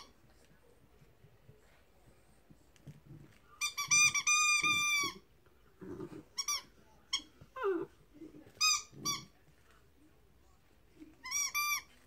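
Squeaky dog toy squeaking again and again as a Chesapeake Bay Retriever puppy chews it. A quick run of squeaks comes about four seconds in, then single squeaks and another short run near the end, with soft muffled chewing and rustling against the bed.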